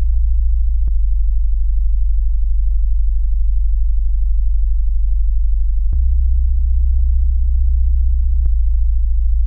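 Minimal electronic drone music: a loud, deep, steady sine bass tone that shifts in level with a sharp click three times, about a second in, near six seconds and near eight and a half seconds, over a faint rapid flutter.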